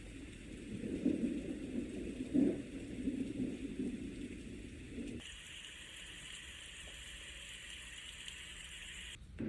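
WSleep portable white noise machine playing its built-in sound effects. A low rushing noise with a couple of louder swells cuts over about five seconds in to a steady, higher hiss, which stops briefly just before the end as the next sound begins.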